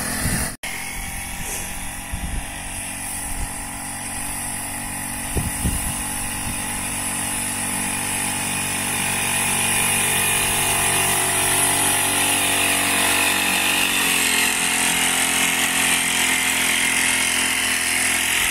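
Small engine of a motorised backpack crop sprayer running steadily while the lance mists pesticide, with a brief break about half a second in.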